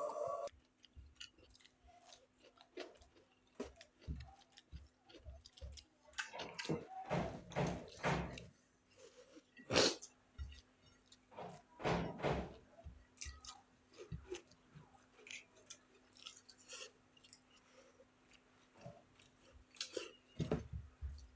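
Eating sounds: people chewing a mouthful of rice and egg curry, in short, scattered clusters with pauses between, over a faint steady hum.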